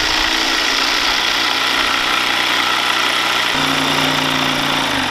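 Corded electric jigsaw cutting through a wooden board: a steady motor whine over the rasp of the blade, the pitch dipping a little about three and a half seconds in.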